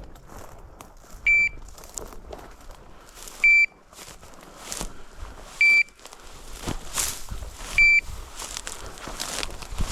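Dog's beeper collar sounding four short, high, even beeps about two seconds apart, the steady cadence of a beeper collar's point mode, which signals that the dog is holding point on a bird.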